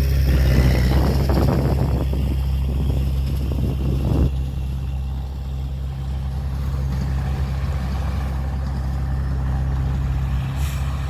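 Heavy earthmoving machine's diesel engine running steadily with a low drone, with a rougher, noisier clatter over the first four seconds that then dies down.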